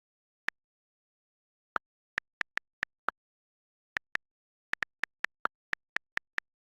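iPhone on-screen keyboard click sounds as words are typed: a single tap, then quick runs of taps at about four to five a second, with a few clicks slightly lower in pitch than the rest.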